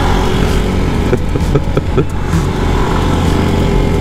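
Motorcycle engine running steadily at road speed, with an even rush of wind noise and a few short clicks between one and two seconds in.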